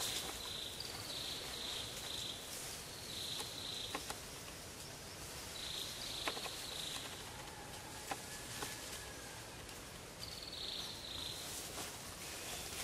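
Insects buzzing in high, repeated phrases about a second long, over a steady forest hiss, with scattered sharp clicks.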